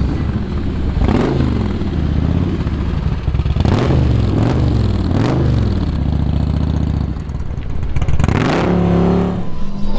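Large cruiser motorcycles riding past and pulling away, their engine notes rising and falling several times as they accelerate through the gears. The loudest rev comes near the end.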